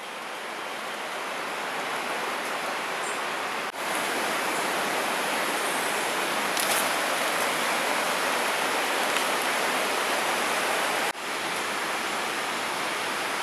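Steady rushing of a river, an even hiss of running water that dips briefly twice.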